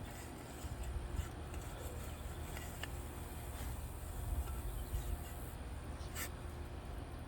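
Low rustling and a few faint scrapes of digging in garden soil, over a steady high trilling of insects.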